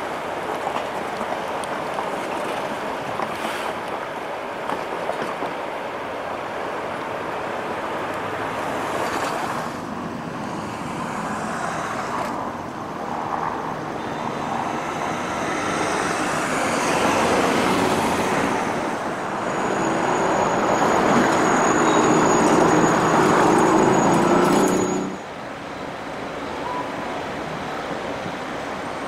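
Nippon Sharyo P865 light-rail cars rolling slowly along yard track, mixed with steady traffic noise. The sound swells in the second half, with a thin high whine over the rumble, then drops suddenly near the end.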